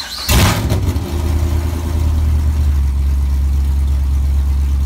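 Pontiac GTO V8 with freshly fitted long-tube headers catching from the starter with a loud burst just after the start, then settling into a steady, loud, deep idle.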